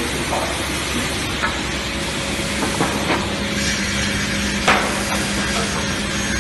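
MJ141 multi-saw edger running with a steady, loud rushing noise. A low hum sets in about two and a half seconds in, and a few sharp knocks break through, the loudest about two thirds of the way through.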